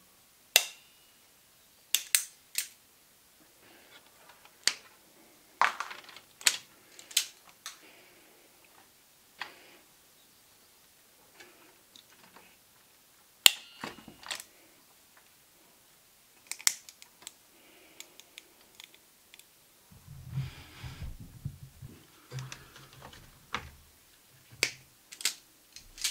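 Sharp, irregular clicks and snaps of a crimping tool and pliers working on wiring in an amplifier chassis, with a cluster of low knocks and handling noise about twenty seconds in.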